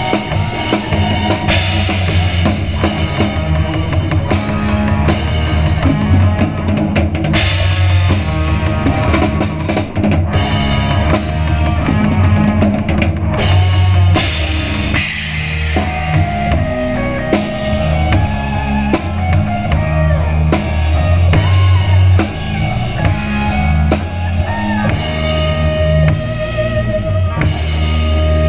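Live rock band playing, with a drum kit loud in the mix: kick drum, snare and cymbals driving a steady beat under bass and electric guitar.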